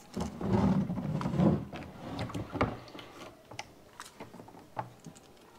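Handling noises of the Sagan Life AquaBrick water filter being pressed onto its plastic container and screwed tight: a stretch of scraping and rubbing in the first second or so, then scattered small clicks and knocks.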